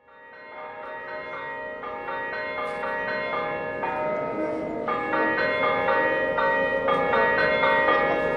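Church bells ringing a fast, repeating festive peal, each note ringing on under the next. It fades in over the first second and grows gradually louder.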